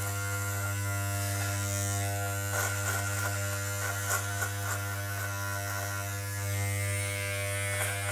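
Electric shaver running with a steady buzz, with a few brief crackling ticks around the middle.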